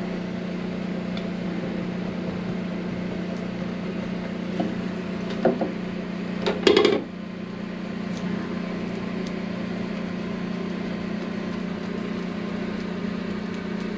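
A small electric motor hums steadily. Light knocks come a little past the middle, and a short, louder clatter follows about seven seconds in.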